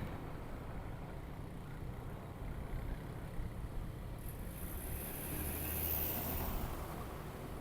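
Motorcycle engine running steadily while riding on the road, with a louder rush of hiss and rumble swelling about four seconds in and fading near the end.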